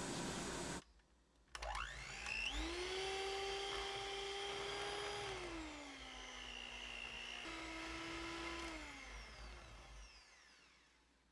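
Electric hand mixer whirring up to speed with a rising whine about a second and a half in, then running steadily as its beaters whip butter in a glass bowl at high speed until it turns pale. Its pitch drops a step around the middle and again later, before it winds down and fades out near the end.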